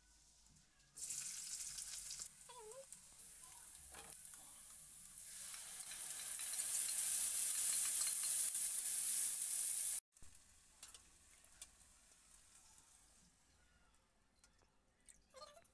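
Chopped onion frying in hot oil in a stainless steel kadhai: a loud sizzle that starts suddenly about a second in as the onion hits the oil and grows louder as it is stirred. It cuts off abruptly about ten seconds in, leaving only faint sounds.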